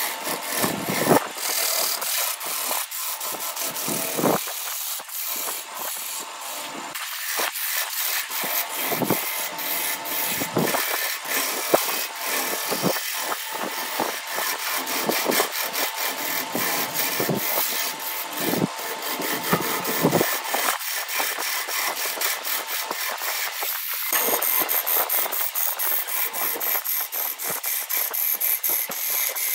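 A hand-held turning tool cutting a spinning wood blank on a wood lathe: a continuous rasping, scraping hiss with rapid fine crackle from the cut, varying as the tool moves along the piece. A thin high whine joins near the end.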